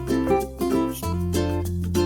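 Background music: plucked strings, ukulele-like, picking notes in a steady rhythm over a held bass that changes about a second in.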